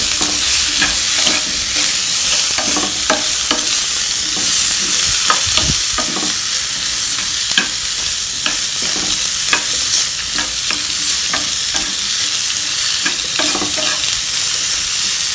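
Onion, tomato, lentils, dried red chillies and curry leaves frying in oil in a nonstick pan while being stirred: a steady sizzle with frequent light scrapes and clicks.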